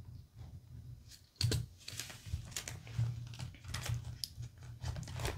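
Small desk handling sounds: a pen writing on a binder page, then being set down, with a string of light clicks, taps and rustles starting about a second and a half in, over a faint steady low hum.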